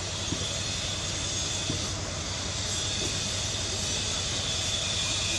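Steady outdoor background drone with a high, even hum and a few faint ticks, rising slightly in level near the end.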